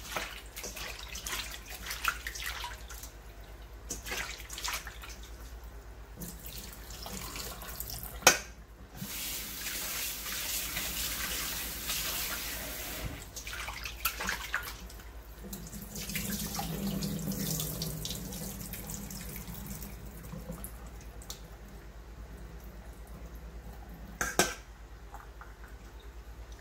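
Raw chicken gizzards being rinsed by hand in a steel bowl at a stainless steel sink: tap water running and splashing as the meat is kneaded to wash out the tapioca starch used to clean it. A couple of sharp knocks, about eight seconds in and near the end.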